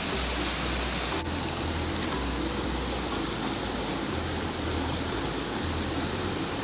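Fast mountain stream rushing over rocks and boulders: a steady, unbroken rush of water.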